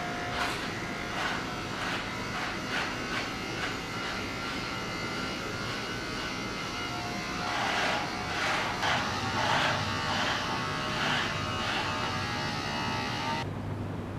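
Small electric beard trimmer buzzing steadily as it runs through a thick beard, with repeated short rasps as the blade meets the hair, busiest past the middle. The buzz cuts off abruptly near the end, leaving a low hum.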